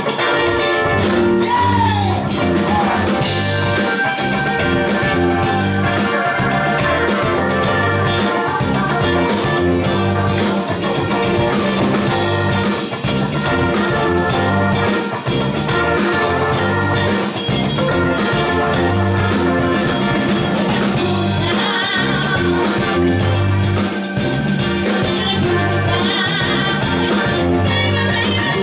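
Live rock band playing: two electric guitars, bass guitar, keyboards and drums on a steady driving beat, with a woman singing lead at times.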